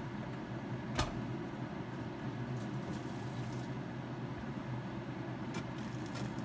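Steady low hum of a running kitchen appliance, with one sharp click or knock about a second in.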